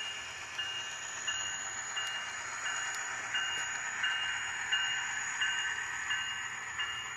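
ESU LokSound V5 micro decoder in an N-scale Kato MP36PH locomotive playing diesel locomotive sound through its tiny speaker as the train runs past, with a bell ringing steadily about one and a half strokes a second.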